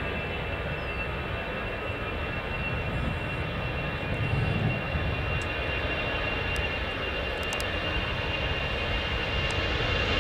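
Airbus A320 jet engines running at low taxi power as the airliner lines up to take off: a steady high whine over a low rumble, growing slightly louder near the end.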